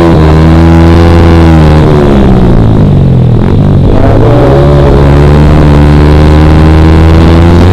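Yamaha R15 V3 motorcycle's single-cylinder engine running through a Ronin Black Katana aftermarket racing exhaust while riding. The revs hold steady, drop for a second or so near the middle, then climb again about four seconds in and hold.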